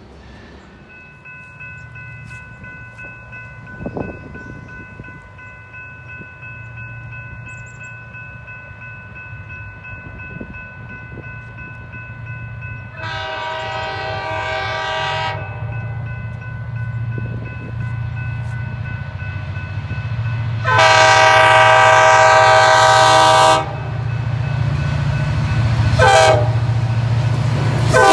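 Wisconsin & Southern freight locomotive sounding its horn in the grade-crossing pattern, long, long, short, then a final long blast starting at the end, over a diesel engine rumble that grows louder as the train approaches. A steady high ringing sounds through the first half.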